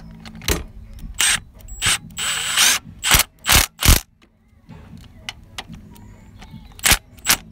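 A socket on a long extension tightening the 12 mm bolts that hold the gear linkage bracket to the gearbox. It makes sharp clicks in short clusters, with a brief run of noise near the middle.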